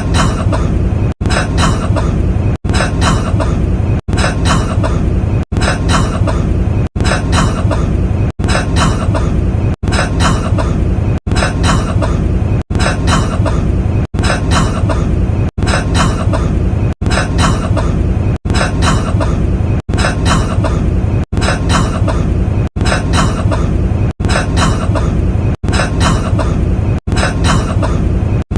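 One recorded cough of a man, looped over and over: the same cough repeats about every second and a half, each repeat cut off by a brief sharp gap.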